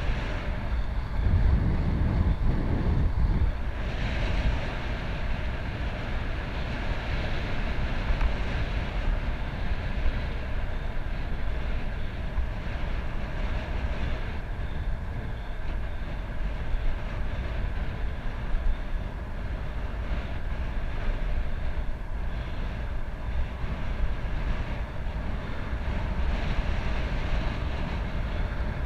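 Wind rushing over the microphone of a camera on a moving road bicycle, with the tyres humming on asphalt. A steady, low rumble that is heaviest in the first few seconds.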